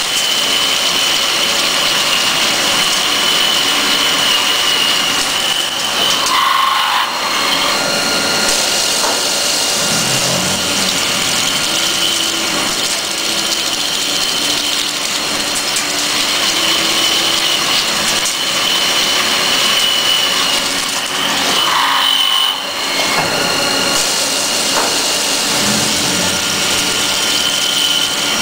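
CNC drilling center's spindle driving a drill into a metal plate under a coolant flood: a steady high whine over the hiss and splash of coolant. The sound breaks briefly twice, about six and twenty-two seconds in.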